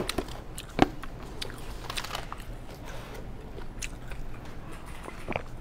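Quiet chewing and mouth sounds close to a clip-on mic, with scattered small clicks and taps and a sharper click about a second in.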